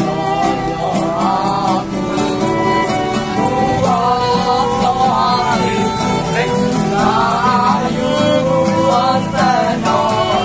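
A bowed violin playing a wavering melody over a strummed acoustic guitar, with young men's voices singing along.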